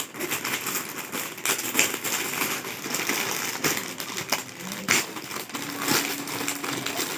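A parcel's packaging being torn open and crumpled by hand: irregular crinkling rustles and small clicks.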